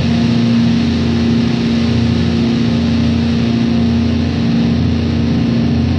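Heavy stoner rock band playing: a distorted note held steadily for several seconds over drums and cymbals.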